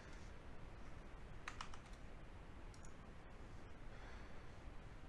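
A few computer keyboard clicks over faint room hiss: a quick run of about three about a second and a half in, and a fainter pair near three seconds.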